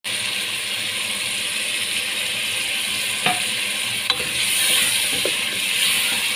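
Cubed potatoes and peas sizzling in oil and spice masala in a non-stick pot, being stirred with a wooden spatula that knocks twice against the pot about halfway through.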